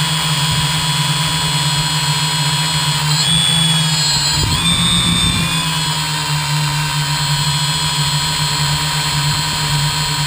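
Multirotor drone's electric motors and propellers whirring steadily as heard from the onboard camera, a constant hum with a high motor whine. The whine shifts in pitch briefly about three to five seconds in as the motors adjust speed.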